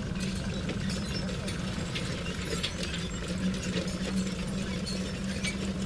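Building-site noise: a steady low machine hum with scattered, irregular clicks and knocks of tools throughout.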